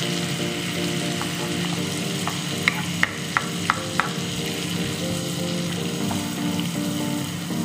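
Butter sizzling and bubbling as it melts in a hot wok, pushed around with a wooden spatula. A quick run of about six sharp clicks comes around the middle.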